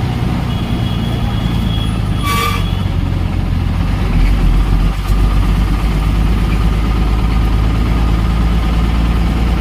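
A bus's diesel engine running as it drives, a steady low drone heard from inside the cab that grows stronger about four seconds in, with a brief sharp sound about two seconds in.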